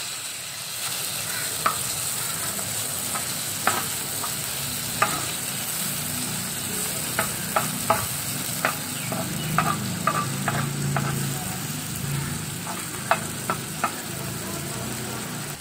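Chopped onions and tomatoes sizzling steadily in hot ghee and butter in a pan, stirred with a spoon that knocks and scrapes against the pan in scattered clicks, most often in the middle stretch.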